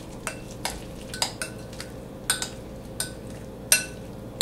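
Fork clinking against a glass mixing bowl while stirring and mashing egg salad: irregular taps with a short ring, about two or three a second, the loudest one a little before the end.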